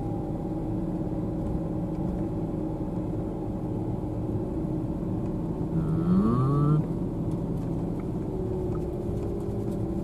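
Car engine and road noise heard from inside the cabin while driving slowly: a steady low hum and rumble. About six seconds in, a short rising tone sounds over it for under a second.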